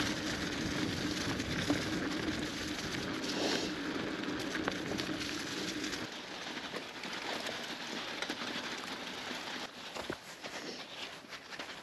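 Mountain bike rolling over an unpaved track: a steady crackling hiss of knobby tyres on sand and gravel. A low hum runs under it for the first half, then drops out about six seconds in.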